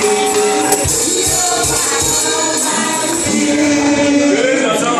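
Gospel worship music during a church service: tambourine jingling over held instrument tones, with singing voices.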